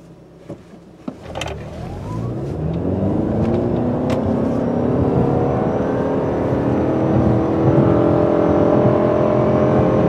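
2018 Toyota Camry SE Hybrid's 2.5-litre four-cylinder engine at full throttle in a hard launch from a standing start, heard from inside the cabin. About a second in, the engine note starts climbing steadily in pitch and grows louder as the car accelerates.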